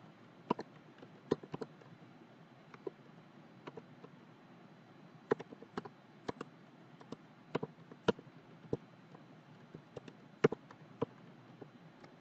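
Computer keyboard typing: sparse, irregular key clicks in small clusters over a faint steady hiss.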